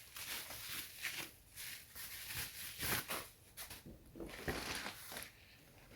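Plastic packaging rustling and crinkling in short, uneven bursts as a charging cable is slid out of it.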